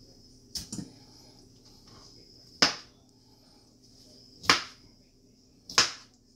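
A chef's knife chopping a pineapple spear into chunks on a plastic cutting board: four sharp knocks a second or two apart, the first a quick double. A faint steady high-pitched whine runs behind them.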